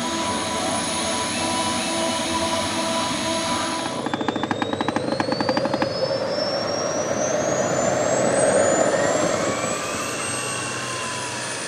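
Model gas-turbine engines running with a steady multi-tone whine. About four seconds in this gives way to a small turbine starting up: rapid clicking for a couple of seconds, then a whine that climbs steadily in pitch as the turbine spools up.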